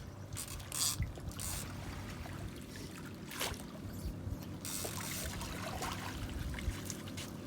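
Water splashing and trickling in short irregular bursts around a just-caught smallmouth bass, over a low steady rumble.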